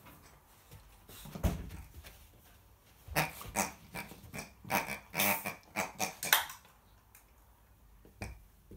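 American Akita puppy playing with and chewing a pink toy pig. There is one short sound about a second and a half in, then a quick run of about a dozen short, sharp sounds from the toy and the puppy's mouth between three and six and a half seconds in, and one more near the end.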